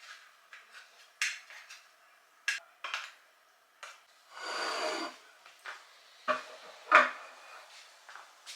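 Kitchen clatter: dishes and utensils clinking and knocking in a scattered run of sharp hits, the loudest near the end. A rasping scrape lasting about a second comes midway.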